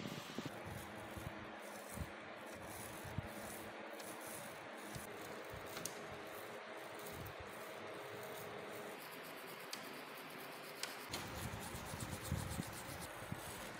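Small wire brush scrubbing a rusty antique padlock wet with liquid: fast back-and-forth scratching strokes of the bristles on the crusted iron. The scrubbing gets louder and rougher about eleven seconds in, with some low knocks.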